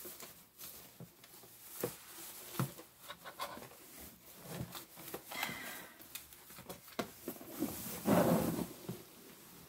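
A cotton canvas drawstring bag rustling and rubbing as a heat press is pulled out of it, with scattered light knocks of the hard plastic press and its cord. A louder rustle comes about eight seconds in, as the press slides free.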